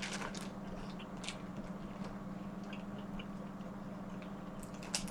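Eating sounds from snow crab legs: scattered small clicks and cracks of shell being handled and broken, a cluster at the start and the loudest crack near the end, over a steady low hum.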